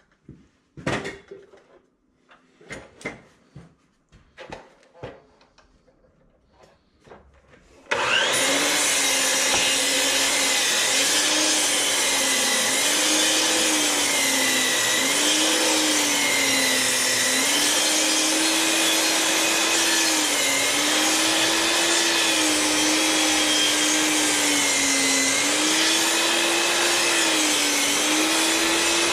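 A few scattered knocks of wood and tool handling, then about eight seconds in a DeWalt 12-inch mitre saw starts up and runs loudly and steadily. Its motor pitch sags and recovers every couple of seconds, as the blade is loaded in cuts through 6x6 posts.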